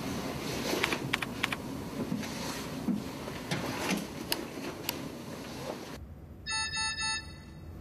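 Clicking and clattering of computer-keyboard typing as a search is entered, then three short electronic beeps in quick succession near the end.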